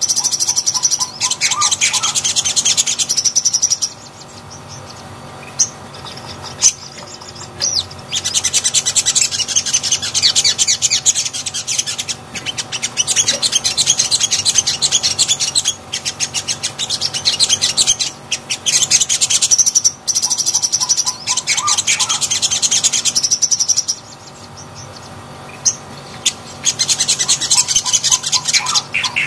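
A caged sogon (sogok ontong), a sunbird, singing long runs of rapid, high chirping trills, with two short pauses.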